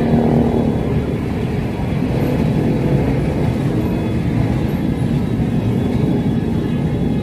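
Steady, dense rumble of street traffic.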